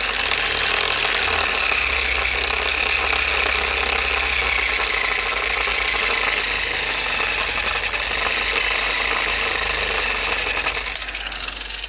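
Angle grinder fitted with a homemade speed controller and a sandpaper disc, sanding a steel axe head held in a vise: a steady motor hum with the hiss of abrasive on metal, easing off near the end.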